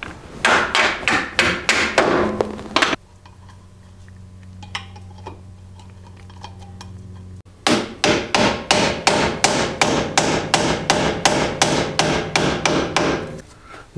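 Hammer tapping bolts through a rear lower control arm's new two-piece bushings and mounts. A quick run of metal strikes lasts about two and a half seconds, then comes a pause with a steady low hum. About halfway through, a longer run of even strikes starts, about four a second, and stops near the end.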